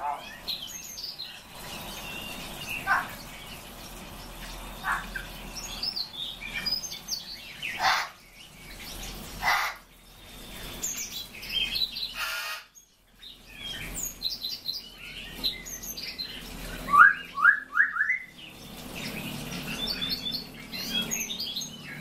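Several small caged songbirds chirping and calling, with many short high chirps, a few louder calls, and a quick run of about four rising notes late on.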